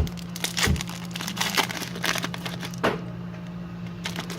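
Plastic wrapper of a trading card pack crinkling in the hands as it is handled and opened, with a few sharp crackles in the first three seconds, over a steady low hum.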